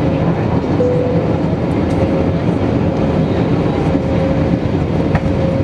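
Airbus A320 in flight, heard from inside the cabin over the wing: a steady, loud roar of the engines and airflow, with a thin steady whine running through it.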